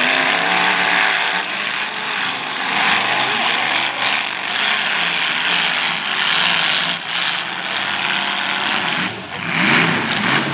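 Several demolition derby cars' engines running and revving together, rising and falling in pitch, with a few short knocks as the cars hit one another.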